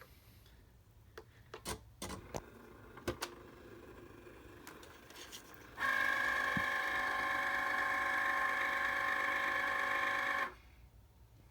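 A Cricut cutting machine operating: a few clicks and knocks, then a loud, steady, pitched whine with many overtones for about four and a half seconds that stops abruptly. This is the loud noise the machine makes when it operates.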